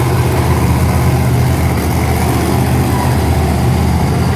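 Monster truck engine running loudly and steadily, with a deep, even low hum.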